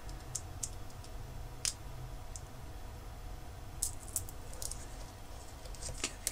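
A tiny surface-mount micro-USB connector being handled on a metal work platform: about eight small, sharp clicks and taps, scattered and irregular.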